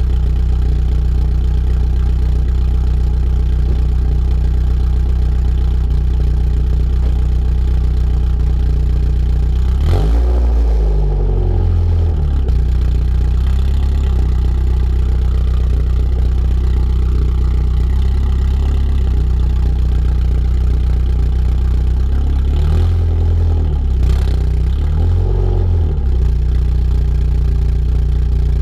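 Mazda Miata inline-four with a decatted, straight-piped exhaust idling steadily, blipped up and back down once about a third of the way through and twice in quick succession near the end. Sharp crackles come with the blips.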